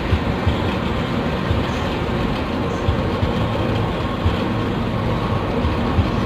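Moving intercity coach heard from inside: a steady drone of engine and road rumble, with a few short knocks and rattles from bumps along the way.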